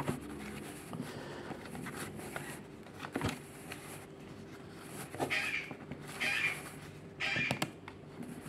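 Brother colour laser toner cartridge roller being turned by its end gear against a damp cloth: quiet rubbing and plastic scraping, with a few clicks and three short scraping strokes about a second apart in the second half.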